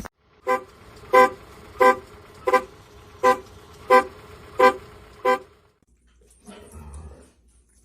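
Car horn sounding eight short honks at an even pace, about three every two seconds, then stopping.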